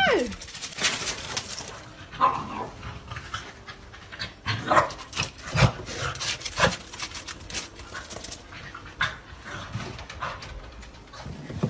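A small spaniel panting and snuffling, with scattered clicks and a few short, sharper sounds.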